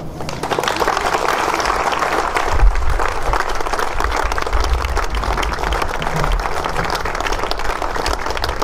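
Audience applauding, a dense patter of many hands clapping, with a few low rumbles underneath a few seconds in.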